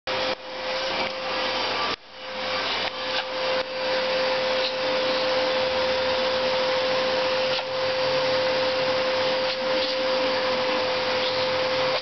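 Vacuum cleaner running with a steady whine over its motor noise; the sound dips sharply and recovers several times in the first few seconds, then runs evenly.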